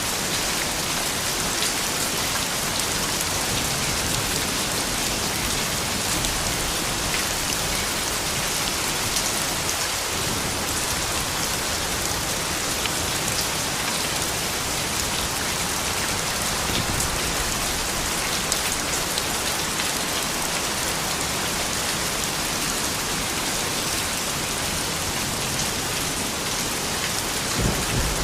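Soft rain falling steadily, a continuous hiss dotted with fine ticks of individual drops.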